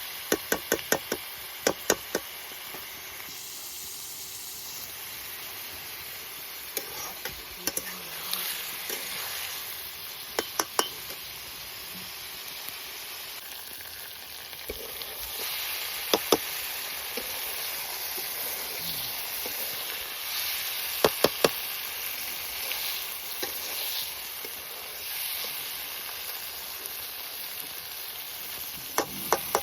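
Chicken sizzling as it fries in a pan, a steady hiss, while a utensil stirring it knocks sharply against the pan in short runs of clicks several times.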